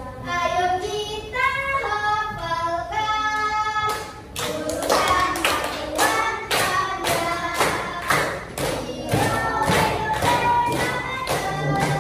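A song with singing. It opens with a gliding melody and no beat, then from about four seconds in a steady beat of sharp strokes, about two to three a second, runs under the tune.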